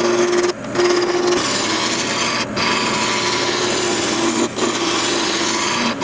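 A lathe running with a hand-held cutting tool scraping the spinning workpiece: a steady rough cutting noise over the motor's hum, broken off very briefly three times.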